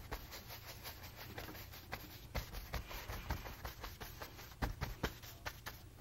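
Stiff bristle brush scrubbing and dabbing oil paint onto a stretched canvas: a faint run of short, irregular scratchy strokes over a low steady hum.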